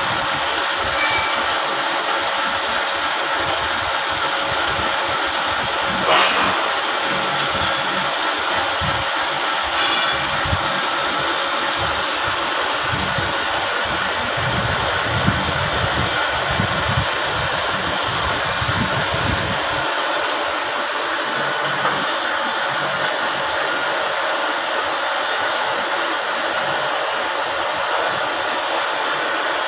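Metal lathe running steadily as it turns a round metal bar: a constant machine whirr, with a couple of faint ticks in the first third.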